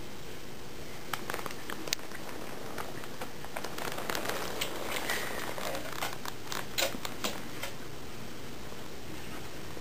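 Steady background hiss with scattered light clicks and crinkling, mostly between about one and eight seconds in.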